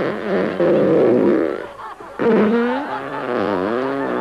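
Staged comic fart sounds. The first is a raspy, buzzing burst about half a second in. After a short break comes a longer pitched one that wavers down and up.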